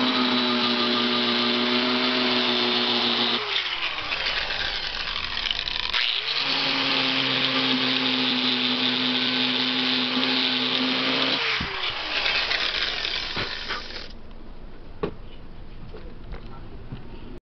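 Handheld angle grinder with a sanding disc running over a wooden countertop, a steady high whine. About three and a half seconds in its pitch falls as it slows, and it speeds back up a couple of seconds later. Near twelve seconds it winds down again and dies away, leaving only faint clicks.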